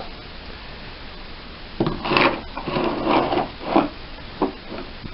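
Gear being handled and set down: a run of about six short knocks and scrapes, starting about two seconds in.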